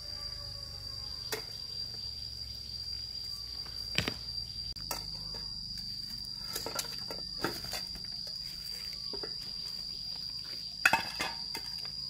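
Insects keep up one steady, unbroken high-pitched drone. Scattered sharp knocks and clicks come over it, the loudest one about eleven seconds in.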